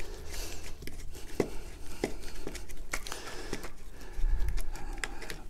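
Small clicks and scrapes of a screwdriver turning a terminal screw on the back of a plastic twin socket outlet, tightening the conductors into the terminal, with handling noise of plastic and wire. A steady low hum lies underneath, and a louder low bump comes about four seconds in.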